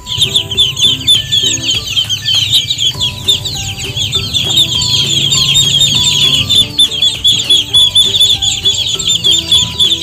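A group of ducklings peeping together: a dense, unbroken run of quick, high, downward-sliding peeps.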